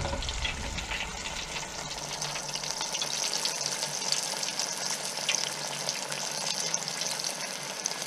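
Breaded fish fillets frying in hot oil in a small electric deep fryer: a steady sizzle with fine crackling.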